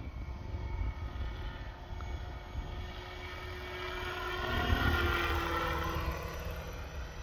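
Small helicopter flying past: its engine and rotor build to a peak about five seconds in and drop in pitch as it goes by, over a low wind rumble.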